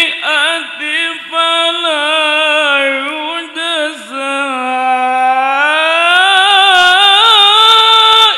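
Quran recitation (tilawah) by a male qori in a high, melodic voice, amplified through a hand microphone. He sings long, ornamented held notes, breaking off briefly a few times, then climbs higher about halfway through and holds the high note to the end.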